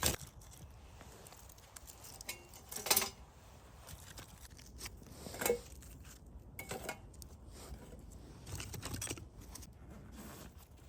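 A few separate light knocks and clinks spread out over several seconds, with quieter rustling between them.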